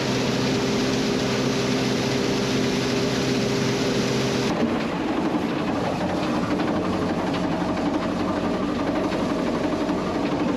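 Farm machinery engine running with a steady hum. About four and a half seconds in, the sound changes abruptly to a rougher running noise with faint rattling ticks.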